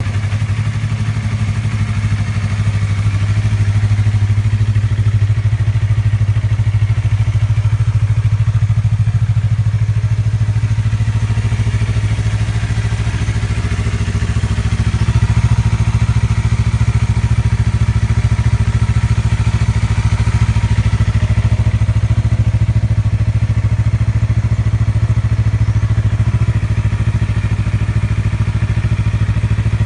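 Yamaha R3's 321 cc parallel-twin engine idling steadily through an aftermarket WR Extreme carbon slip-on exhaust, a low, even, pulsing exhaust note with no revving.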